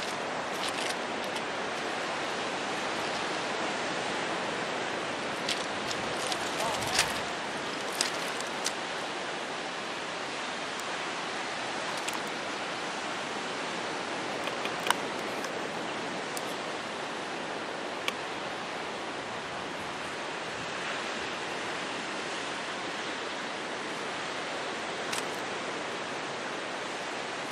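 Steady rushing noise of ocean surf and wind, with a few faint clicks scattered through it.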